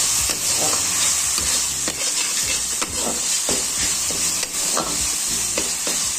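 Spice masala sizzling as it fries in oil in a pan, still short of fully fried. A spoon scrapes and stirs it in short, irregular strokes.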